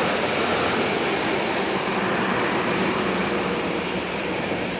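Airbus A330-941 (A330neo) airliner's Rolls-Royce Trent 7000 turbofan engines running as it slowly turns on the runway before takeoff: a steady jet rumble and hiss with a faint low hum.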